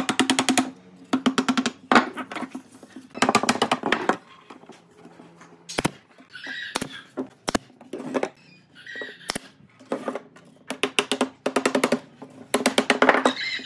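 Short bursts of rapid wooden knocking, a hardwood block tapped quickly against a pine lamp frame to drive its slotted ribs together, a new burst every second or so.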